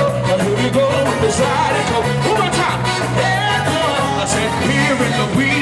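Live zydeco band playing an up-tempo dance groove: accordion melody over bass and a steady drum beat.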